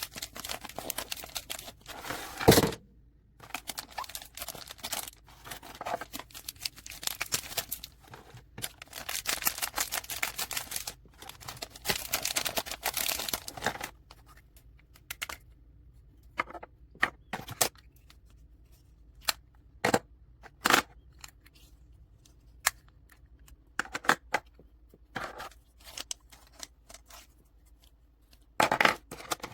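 Packaging being handled and opened: crinkling and rustling almost without pause for about the first half, with a sharp loud crackle about two and a half seconds in, then scattered short clicks and taps.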